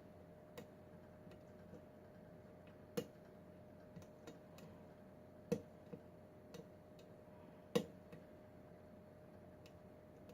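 Irregular small metallic clicks and ticks of a lock pick and tension wrench working the pins of a Kwikset pin-tumbler lock, three of them sharper than the rest, over a faint steady hum.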